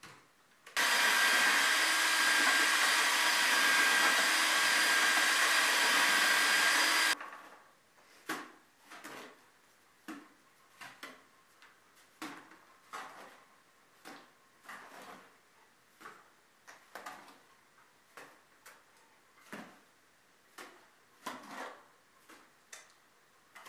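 A power tool motor runs steadily for about six seconds and cuts off suddenly. It is followed by a string of short scrapes and knocks, roughly one a second.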